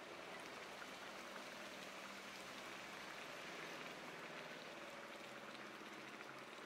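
Rohu fish curry boiling in an uncovered pot: a steady, soft bubbling with faint scattered crackles.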